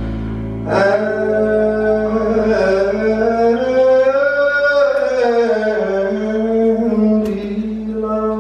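Male jazz vocalist singing a long, drawn-out closing phrase of a slow ballad, the pitch rising to a peak about halfway through and then falling away, over a low sustained accompaniment.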